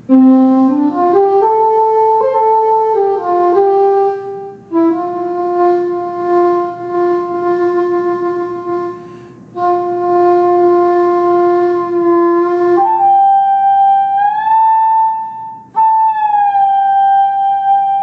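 Songbird iPhone app played as a breath-blown wind instrument: a short melody of clean flute-like notes, stepping up at first, then two long held notes with brief breaks. In the last few seconds a held note glides up and back down, a pitch bend made by tilting the phone.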